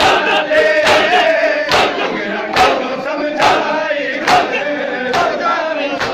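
Crowd of men chanting a noha while beating their chests in unison for matam. The hand-on-chest slaps come as a steady beat, a little under one a second, over the massed voices.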